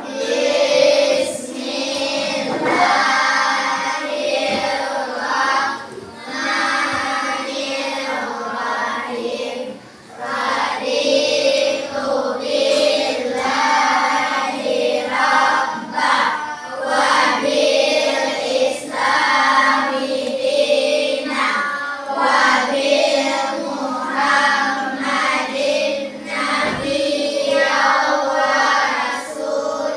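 A class of children chanting a prayer together in unison, in a sing-song voice, phrase after phrase with short breaks between.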